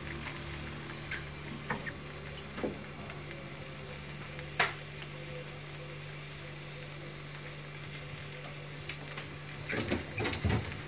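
A thin crepe cooking in a frying pan with a faint steady sizzle and a low hum underneath. A few sharp clicks and taps come from the pan and crepe being handled, the loudest about halfway through and a cluster near the end.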